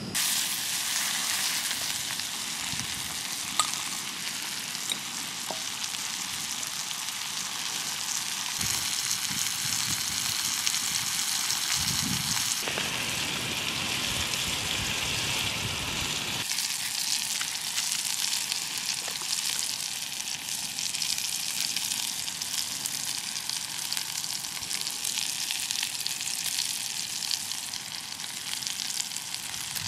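Fat sizzling steadily in a steel frying pan on a camping stove. A lower rushing layer joins in for several seconds around the middle.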